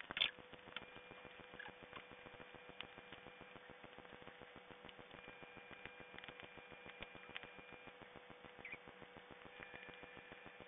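Faint sound of a dog gnawing a bone, sped up eight times: many small rapid clicks and a few short high squeaks, the loudest right at the start, over a steady high hum.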